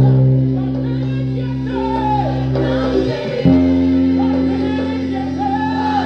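Five-string electric bass playing long held notes along with a gospel song with singing: a C, then an F that comes in about three and a half seconds in.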